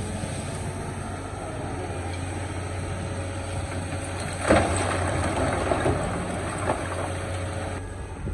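Excavator engine running steadily, with a loud crash of the bucket against rock about halfway through and a smaller knock later.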